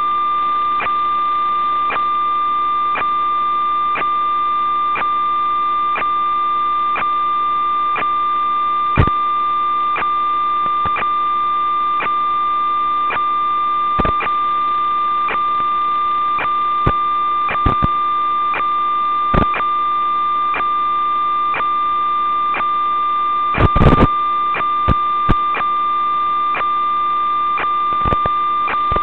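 Steady electronic hum and whine from the audio channel of an analog 5.8 GHz FPV video receiver, with faint regular ticks about once a second. Short crackles and pops break in a few times where the video signal drops out, the loudest a cluster near the end.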